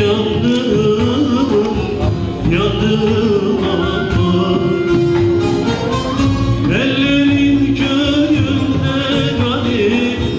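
Male solo voice singing a Turkish folk song, with long held, wavering notes about two and a half and about seven seconds in, over an ensemble of bağlamas (long-necked Turkish lutes).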